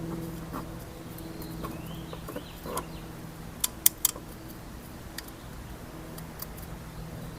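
Steady low hum with faint bird chirps, and three sharp clicks in quick succession just under four seconds in.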